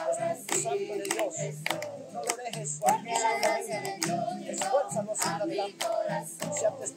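Worship song sung with musical accompaniment, hands clapping along to the beat, a few claps a second.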